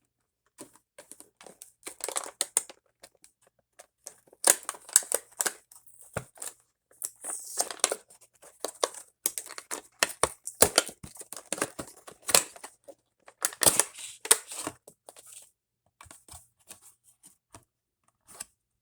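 Plastic packaging of a Heroclix booster pack crinkling and tearing in irregular crackly bursts as it is handled and opened.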